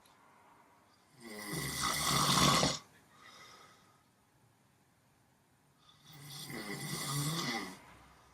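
Snoring in a sleep rhythm: two long snores, the first a little over a second in and the second about six seconds in, each lasting about two seconds, with quiet breathing between them.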